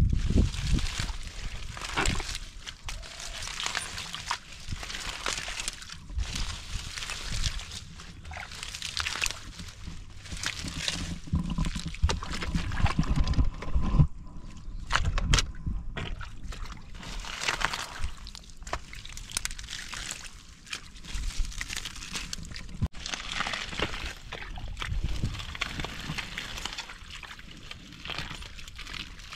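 Hands groping and scooping through wet mud and shallow water among water hyacinth, with irregular sloshing, squelching and splashing.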